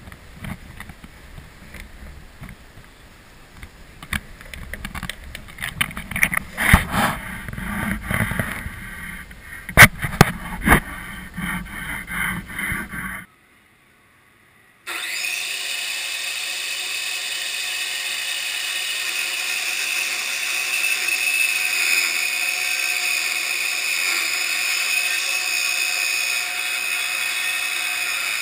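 Clicks and knocks of a steel square and pencil being handled on a pine board, the loudest about 7 and 10 seconds in. About halfway through the sound cuts out, and a steady whir with a high whine comes in and slowly grows.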